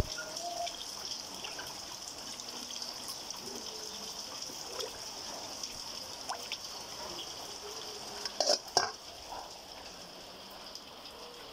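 Hands sloshing and splashing water in a plastic basin while handling live, freshly caught fish, over a steady high hiss. A few sharp, louder knocks and splashes come about eight and a half seconds in.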